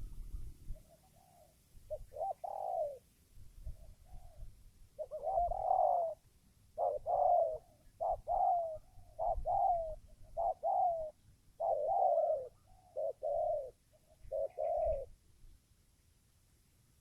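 Spotted dove (tekukur) cooing: a long run of short coo notes, each falling slightly in pitch. The notes start faint and sparse, grow louder and come in quick succession, then stop near the end.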